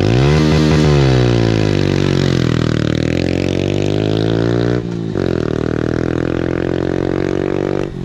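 Honda Wave 125i's single-cylinder four-stroke engine at full throttle in a clutch-drop launch on gravel, its note climbing as the bike pulls away. The note drops briefly about five seconds in, then climbs again.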